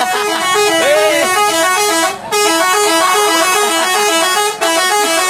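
Bus 'telolet' musical multi-tone horn playing its tootling melody of short stepped notes, heard loud from inside the bus. It breaks off briefly about two seconds in and again near the end, then starts up again.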